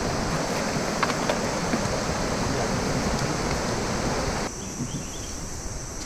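Shallow river rapids rushing steadily over rocks. About four and a half seconds in the rush cuts abruptly to a quieter, duller hush.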